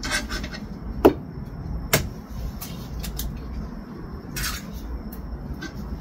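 Eggs being cracked open over a small bowl: a few sharp knocks of eggshell, the loudest about a second in, with the shells pulled apart and dropped.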